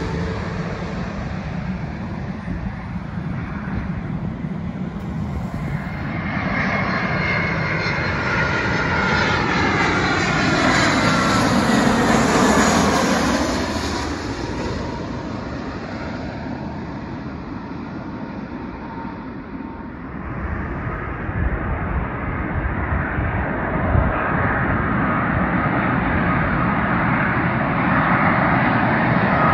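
Jet airliners on final approach, landing gear down, passing low overhead. The engine noise swells to a pass about twelve seconds in with a sweeping whine that falls and rises again, fades, then builds again from about twenty seconds in as another jet approaches.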